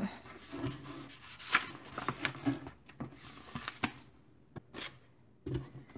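A hardcover picture book being handled: pages turned and the book lifted and moved, giving paper rustles and light taps, then a quieter stretch with a couple of sharp clicks near the end.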